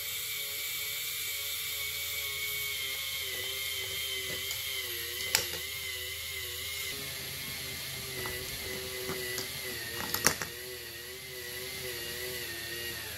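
K'nex ball-machine ring lift running: its small electric motor and gearing give a steady whine whose pitch wavers slightly, with sharp plastic clicks about five seconds in and a short cluster of them about ten seconds in.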